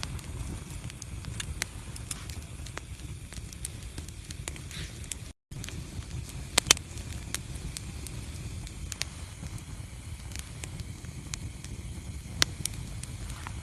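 Fireplace fire crackling: scattered sharp pops over a low steady rumble, with a few louder pops about six and a half seconds in and again near the end. The sound cuts out for a split second a little before halfway.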